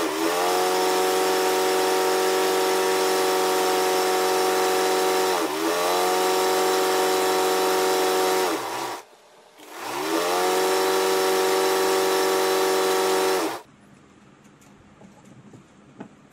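A motor-driven machine running loud and steady with a hum. Its pitch sags once and recovers, then it stops for about a second, spins back up, and cuts off sharply about two-thirds of the way through. After that only faint room noise remains.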